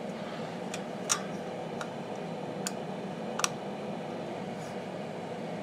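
Bluetti EB70S portable power station's cooling fan running steadily while it charges from the wall, with a few sharp light clicks in the first few seconds.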